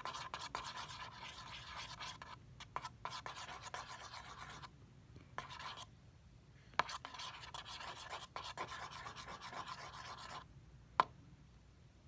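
Bobby pin scraping across cardboard as it stirs a soap, shampoo and paint mixture, in scratchy strokes that stop for moments, with one sharp click near the end.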